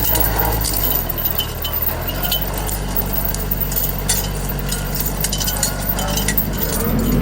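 Tractor engine running steadily, with many sharp clinks and cracks over it.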